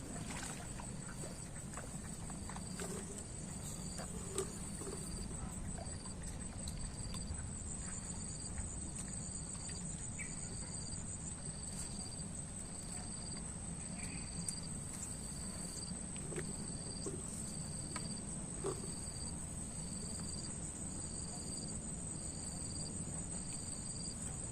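Insects calling without a break: one holds a steady, very high trill while another chirps in short pulses about once a second, over a low steady rumble and a few faint clicks.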